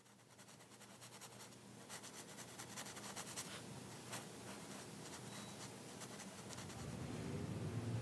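Faint, fine scratching and crackling that fades in, densest in the first half, over a low steady hum that grows louder toward the end.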